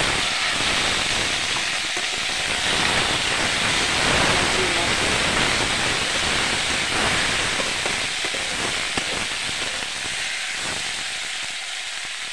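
Diced potatoes and tomatoes sizzling hard in hot oil in a steel kadhai, just tipped in, with a steel spatula stirring and scraping them around the pan. The sizzle eases slowly toward the end.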